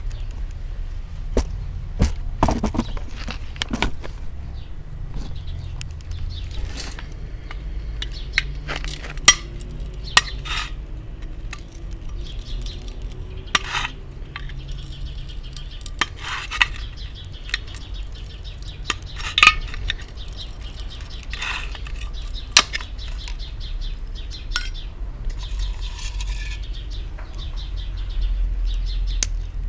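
Irregular metallic clinks and knocks, a dozen or so spread through, over a steady low rumble.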